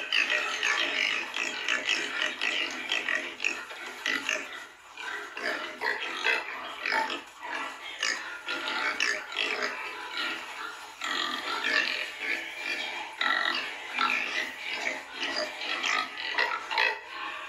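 A group of piglets calling and grunting while rooting about, a constant chatter of short, overlapping calls with no pause.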